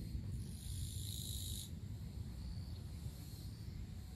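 A high, buzzing insect trill lasting about a second and a half, with fainter short calls after it, over a steady low rumble.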